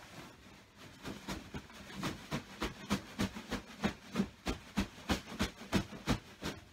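A pillow being shaken and jolted down into its fabric pillowcase: a steady run of soft flapping thumps, about three a second, growing louder as it goes.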